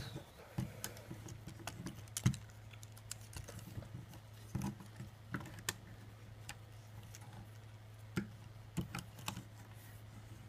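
Irregular light clicks and taps of a plastic Transformers Dinobot figure being handled, its plastic parts knocking and clicking under the fingers, over a steady low hum.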